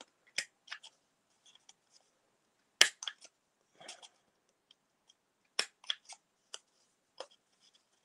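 Hand-held corner rounder punch snapping through card corners: a series of short sharp clicks in small clusters, the loudest about three seconds in.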